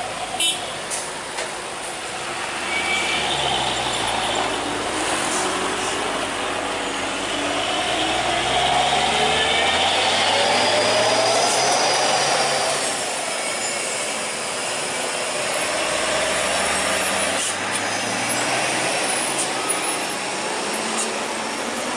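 Heavy diesel trucks and motorbikes climbing a steep hill road, the truck engines running under load with their pitch rising and falling as they pass. Loudest about ten seconds in.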